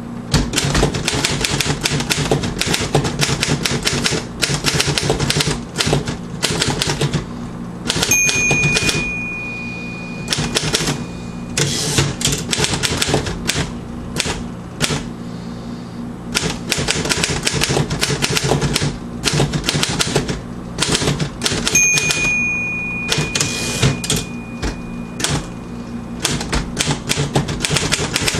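Royal KMM manual typewriter being typed on: a fast, uneven run of key and typebar strikes. Twice, about 8 seconds in and again about 22 seconds in, a bell dings and rings out over a few seconds, the margin bell near the end of a line.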